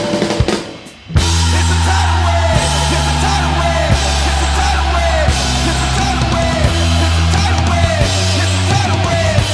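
Background rock music with drums and heavy bass; it drops away briefly about a second in, then comes back in full.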